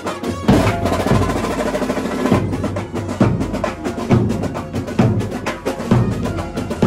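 Street band music: drums and percussion beating a fast, steady rhythm under a sustained saxophone melody, growing louder about half a second in.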